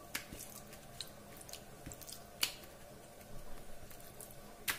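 Fingers rubbing a wet masala paste of chilli powder, turmeric, garlic and coconut oil onto raw fish steaks on a steel plate, giving a faint squelching with a few light clicks.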